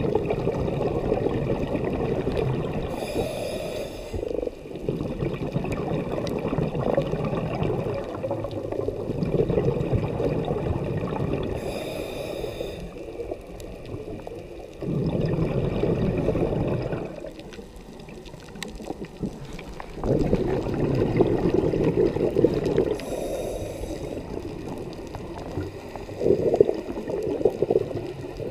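Scuba diver breathing underwater through a regulator: three short hissing inhales, each followed by a long rush of exhaled bubbles.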